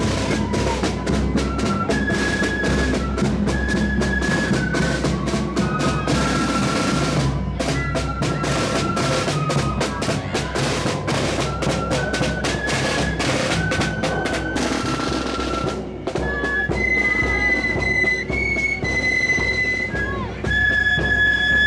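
Marching flute band playing: snare side drums rattle with bass drum beats under a flute tune. About sixteen seconds in the drumming stops and the flutes carry the melody on their own, louder.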